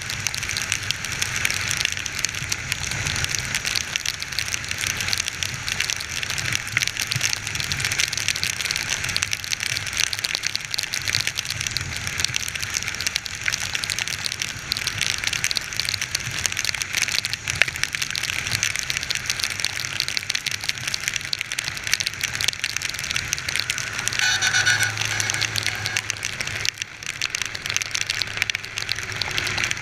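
Heavy rain crackling and pattering steadily, with a low motorcycle engine hum underneath. About 24 seconds in, a brief pitched tone sounds over it for a couple of seconds.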